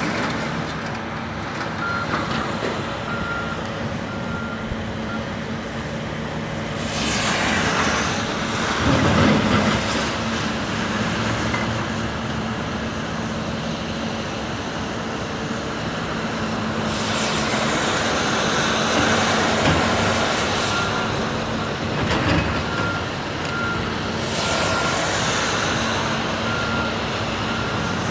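Heavy Caterpillar demolition machinery running with a steady diesel engine hum, a reversing alarm beeping in a regular series early on and again near the end. Three stretches of louder scraping, rushing noise come and go, with a heavier knock among them.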